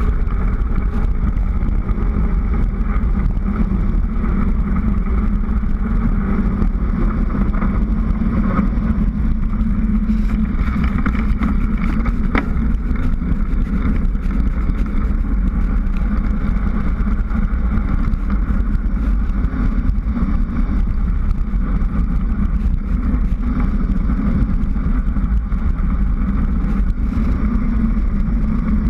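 Steady wind rushing over a GoPro's microphone as a bicycle descends fast on a paved mountain road. The sound is muffled and rumbling, with little high-end.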